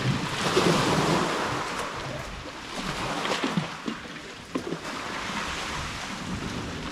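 Sea waves washing into a rocky inlet, a steady rushing that is loudest in the first second or so and then eases.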